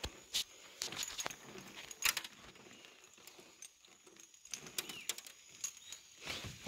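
A nylon cast net being gathered up and folded over the arm, with scattered light clicks and rattles from its lead sinkers knocking together, and a short swish near the end as the net is swung out to be thrown.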